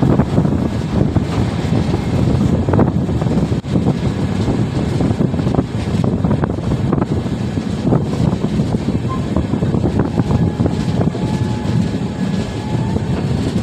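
Steady rumble of a passenger train running along the track, heard from beside the coach with wind buffeting the microphone, and occasional sharp clicks from the running gear.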